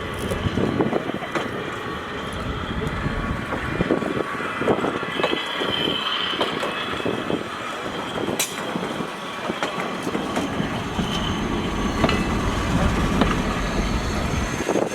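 Railroad cars rolling on steel rails, wheels clacking over the rail joints, with a brief high wheel squeal about six seconds in.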